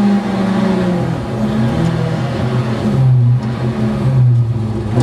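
Škoda Favorit rally car's four-cylinder engine heard from inside the cabin, running hard at high revs with the pitch falling and rising several times as the driver lifts off and gets back on the throttle, dipping to its lowest note about three and four seconds in.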